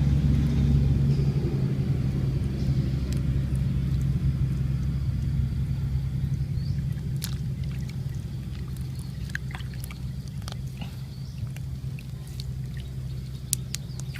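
A small boat's engine running steadily at a low hum, slowly fading away, with scattered light clicks and knocks in the second half.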